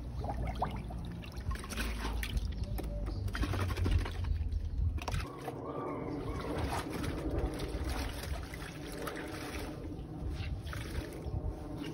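Water trickling and pouring, with irregular sloshing.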